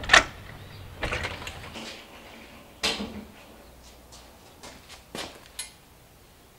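A metal door clunks and rattles loudly at the start, followed by a few more knocks about one and three seconds in and some fainter clicks near the end.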